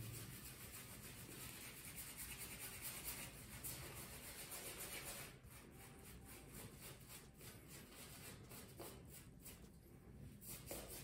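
Omega boar-bristle shaving brush swirled against shave-stick soap on the face to build a lather: a faint, steady bristly rubbing made of quick brush strokes.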